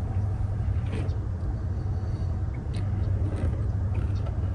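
Steady low rumble, with a few faint light clicks over it.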